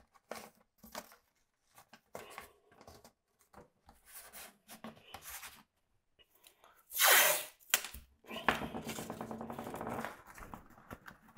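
Green painter's masking tape being pulled off the roll and torn in strips. Several short, quiet pulls come first, then a loud quick rip about seven seconds in, followed by a rapid crackling unroll lasting about two seconds.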